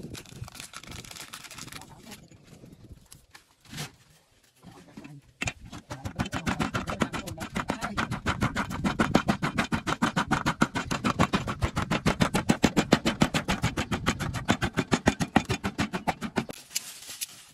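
Wooden pestle pounding chillies, garlic and seasoning in a wooden mortar: after a few seconds of quieter handling, rapid, even thuds, several a second, start about five seconds in and stop shortly before the end.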